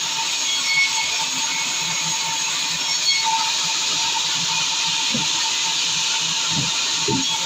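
Sawmill saw running with a steady hiss and a thin steady whine, with a few low thuds in the last couple of seconds.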